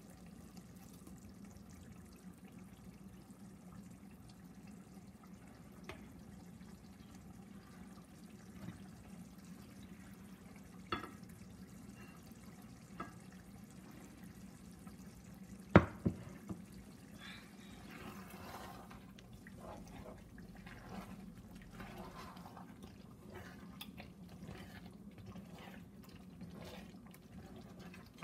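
A pot of thick peanut sauce simmering, with faint irregular bubbling and popping that grows busier in the second half. A few light clicks and one sharp knock about halfway through.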